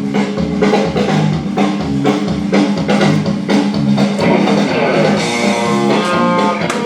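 Background music: a rock song with strummed electric guitar over a steady drum beat.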